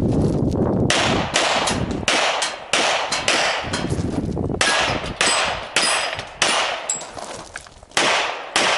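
A long string of handgun shots fired rapidly during a practical shooting course of fire, many in quick pairs, with a few short gaps between strings.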